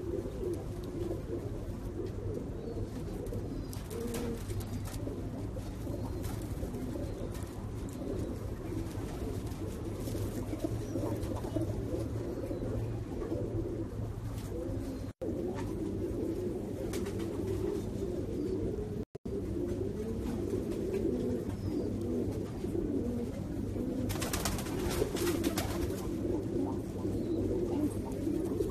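Domestic pigeons cooing continuously, many overlapping low coos at once. The sound cuts out briefly twice.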